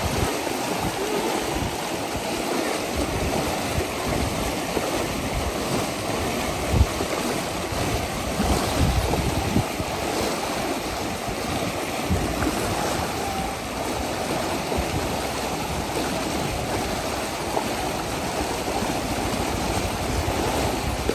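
Fast, muddy floodwater rushing and churning along a roadside channel: a steady rush of water, with a few low thumps about seven and nine seconds in.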